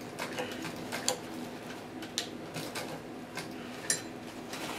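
Sparse mechanical clicks and ticks, roughly one a second, from a Singer semi-industrial sewing machine turned slowly by its hand wheel, stitching a little at a time.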